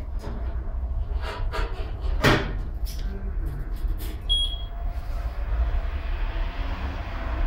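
Knocks and clatter as a car wheel is clamped onto a Hunter wheel balancer and its wheel hood is lowered. About four seconds in the balancer beeps once, and the wheel spins up in a steady rising whir of motor and air.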